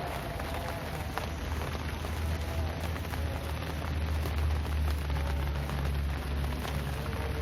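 Steady rain falling and pattering on surfaces: an even hiss with scattered small drop ticks over a steady low rumble.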